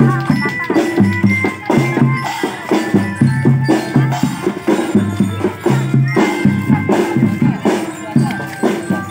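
Children's drum band playing a marching tune: a steady beat of drums and light percussion under a melody with the bright ringing notes of a bell lyre.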